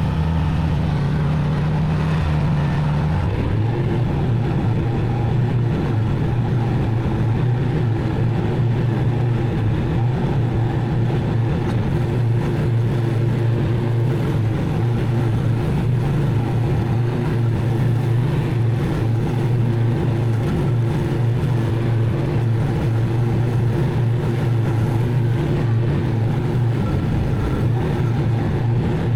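Zero-turn mower engine running steadily while mowing; its note drops about three seconds in, then holds steady.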